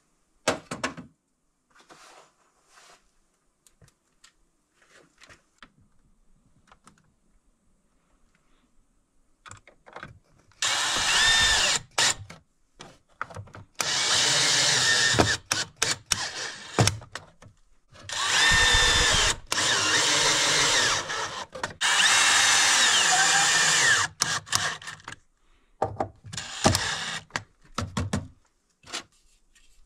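Cordless drill-driver driving the terminal screws on circuit breakers in a consumer unit, in four bursts of one to three seconds, its motor whine rising and falling with the trigger. The first few seconds hold only a few small handling clicks, and a few clicks follow the last burst.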